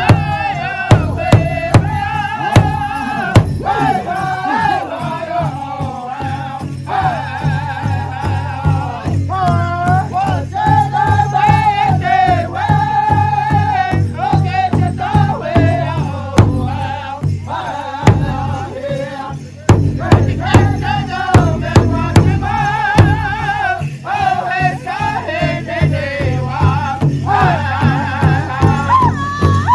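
Pow wow drum group: several singers in high voices over steady, regular beats on a large shared drum, with a brief drop in the singing about two-thirds of the way through.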